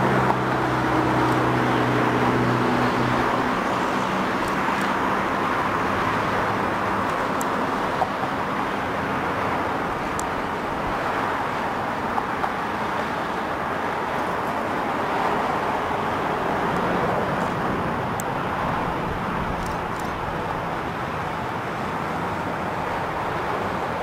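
Jet engines of an easyJet Airbus A320 landing. A low engine hum fades in the first few seconds after touchdown, then a steady rushing jet roar goes on through the rollout and slowly dies away.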